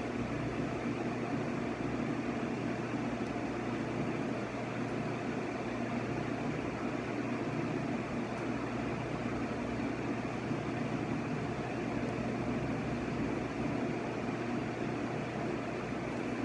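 Steady hum of a running fan, with an even rush of air that does not change.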